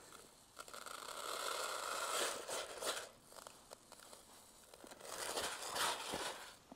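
Dry Coppens fishing feed pellets being poured out into a container: a rustling, rattling pour in two spells, one starting about half a second in and lasting about two seconds, the other about five seconds in.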